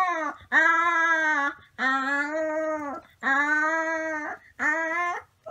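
A puppy howling: five howls in quick succession, each about a second long on a held note that rises and falls slightly, the last one shorter.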